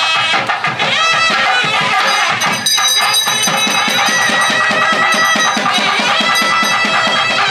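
South Indian temple melam music: a nadaswaram playing a winding, gliding melody over fast, steady thavil drumming.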